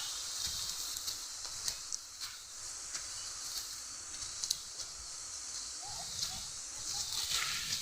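Steady high hiss of falling water from a waterfall, with scattered light clicks and taps throughout.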